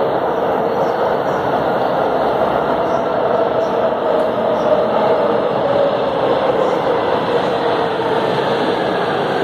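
Metro train approaching along an underground station platform: a steady rumble with a whine that slowly falls in pitch as it comes in.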